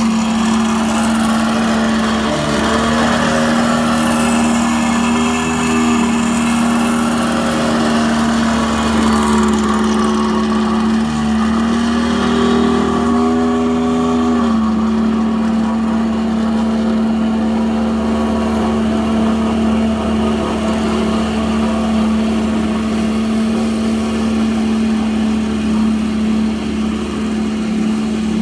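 Small engine of a walk-behind double-drum roller running steadily while compacting bare soil: a constant hum that shifts briefly in pitch about halfway through.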